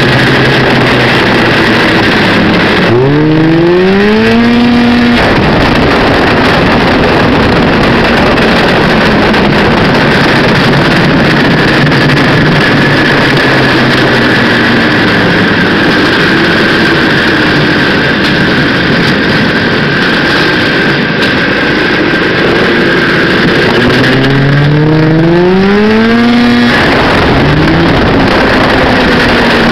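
1979 Arctic Cat El Tigre 6000 snowmobile's two-stroke engine running loud at speed. It revs up hard twice, about three seconds in and again near twenty-five seconds, its pitch climbing steeply each time before it settles back into a steady run, with a faint steady high whine alongside.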